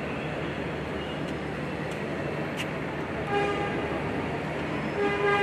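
Steady open-air stadium background noise during a running race, with two short horn toots, a brief one about three seconds in and a slightly longer, louder one near the end.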